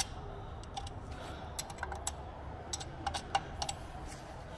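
Light, irregular metal clicks and scrapes of a screwdriver tip working inside a freshly tapped oil-pan drain-plug hole, picking out the metal shavings the thread tap left behind. The clicks stop a little before the end.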